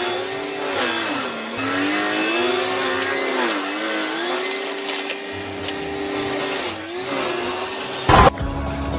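A machine's motor running with a steady whine. Its pitch dips and recovers several times, as under changing load. A short loud thud comes near the end.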